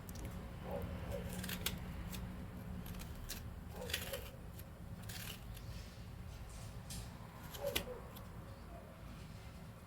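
A spoon scraping and gouging the flesh out of a purple turnip, in short separate strokes a second or more apart, over a low steady hum.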